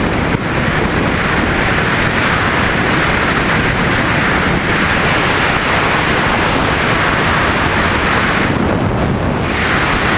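Loud, steady wind rush buffeting the microphone of an action camera mounted on a Honda CB600F Hornet motorcycle riding at road speed.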